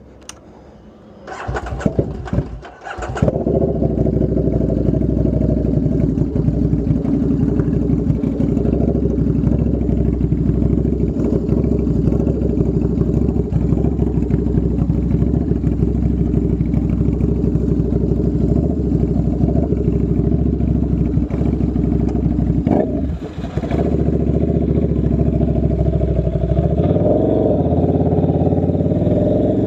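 Buell 1125R's liquid-cooled V-twin, fitted with a very loud custom exhaust with no dB killer, catching after a few stuttering bursts about two seconds in and then idling steadily. The exhaust note dips briefly about two thirds of the way through and blips slightly near the end. The owner says the idle is not quite right since the exhaust change and the bike still needs a tune.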